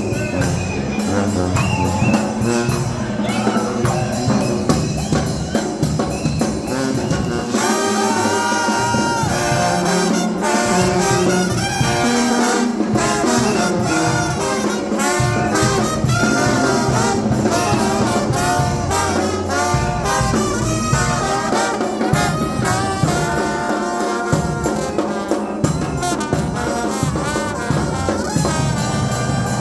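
Brass band playing, trumpets and trombones over a steady beat.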